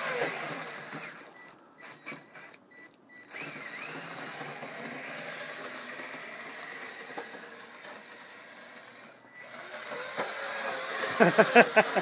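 Electric motor of a Kyosho Blizzard RC snowcat whirring as its tracks churn through snow. It is running over-volted on an 11.1 V LiPo battery through a Traxxas speed controller. The sound drops away briefly a few times about two to three seconds in, and a person's voice comes in near the end.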